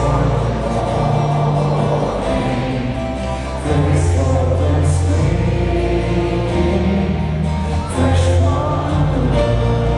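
Live band music with singing, recorded from within the concert crowd.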